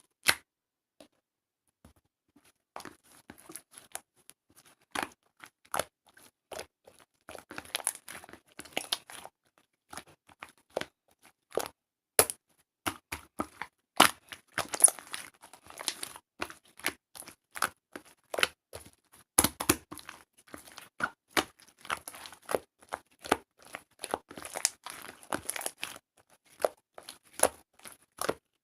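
Slime being pressed, stretched and folded by hand, making irregular sticky clicks, crackles and small pops that come thicker and louder after the first few seconds.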